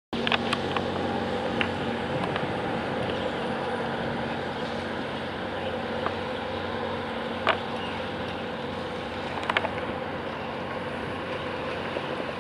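A large container ship's engine humming steadily, with a few short sharp clicks on top.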